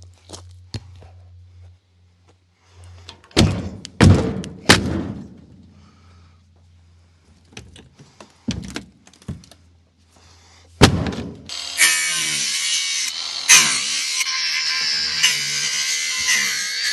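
Heavy wooden thuds, several in the first half and one more just before the two-thirds mark, from crate timber being knocked loose or dropped. Then a hand-held power tool starts and runs steadily to the end.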